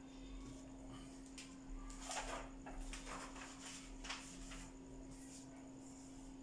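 Faint rustling and a few light knocks of paper sheets being handled, over a steady low hum.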